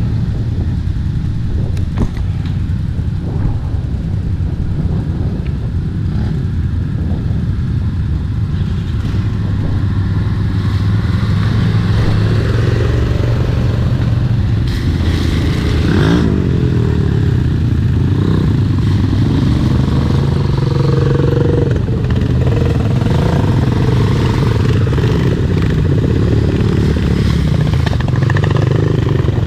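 Quad-bike (ATV) engines running, getting louder as the machines come closer. About halfway through, one engine's note rises and falls as it revs and passes close by.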